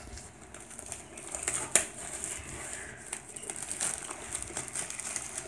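Plastic shrink-wrap crinkling and tearing as it is peeled off a cardboard box, with scattered crackles and one sharp snap nearly two seconds in.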